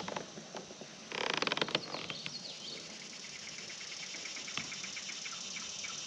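Spinning reel cranked briefly, a burst of rapid fine clicking about a second in, as the lure is dragged and then left to sit. Faint, evenly spaced ticking and a short bird chirp follow.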